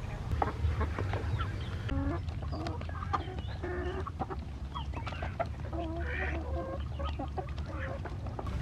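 Chickens clucking: many short calls scattered throughout, over a steady low rumble.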